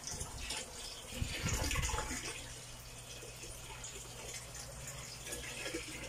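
Water running from a hose into the tub of a top-loading washing machine as it fills, a steady gush that grows louder for a moment between about one and two seconds in.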